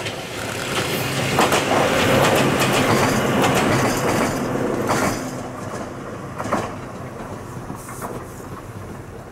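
Ohmi Railway's chopper-controlled electric train 301F passing close by, its wheels clacking over the rail joints. It is loudest for the first five seconds, then fades as it goes away, with one last clack about six and a half seconds in.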